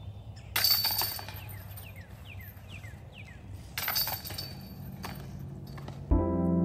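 Discs striking the hanging chains of a disc golf basket twice, about three seconds apart, each a sudden metallic chain rattle that jingles away. Piano music starts near the end.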